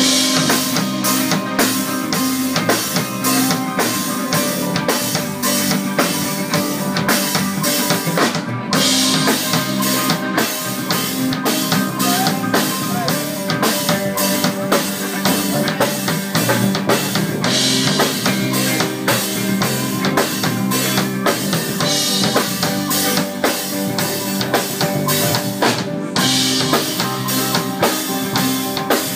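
A band playing a song, the drum kit keeping a steady beat over keyboards and other instruments.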